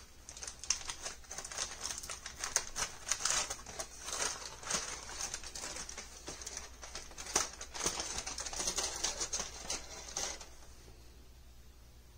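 Aluminium foil crinkling and crackling as it is peeled back off a disposable foil baking tray, a rapid irregular run of crackles that stops about ten seconds in.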